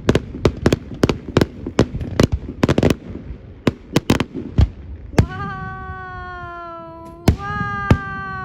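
Fireworks display: a rapid run of sharp bangs and cracks for about five seconds, then two louder bangs, each followed by a long tone that slowly falls in pitch, the first lasting about two seconds and the second about one.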